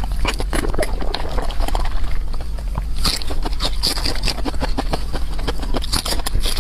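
Close-up wet chewing and mouth smacking, with many quick irregular clicks and squelches, busier from about halfway through. A steady low hum runs underneath.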